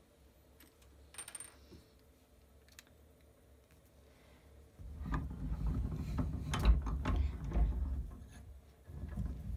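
Small metal pen-kit parts clicking and clinking as they are picked up and fitted together by hand. About five seconds in comes a louder stretch of close rustling and knocking from the handling, lasting a few seconds, with a shorter burst near the end.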